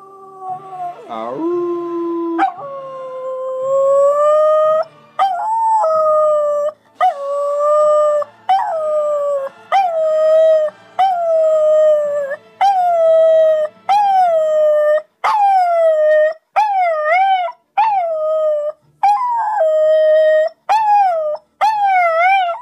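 Small dog howling: one long howl a couple of seconds in, then a string of shorter howls, each starting high and sliding down before it levels off. The later howls waver in pitch.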